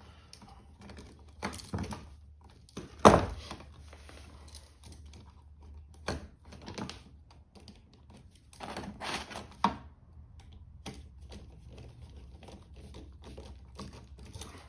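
Scattered small clicks and taps of hand tools and copper wire being worked at an electrical outlet, as the white neutral wire is fastened to its screw terminal. The sharpest click comes about three seconds in, with a cluster of taps near the end.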